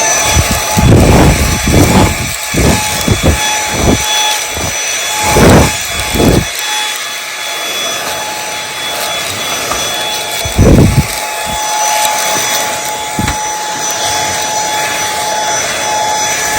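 Dyson V8 Extra cordless handheld vacuum switched on and running with a steady high whine while dusting. Repeated low thumps and bumps are heard, most of them in the first several seconds and a couple more later.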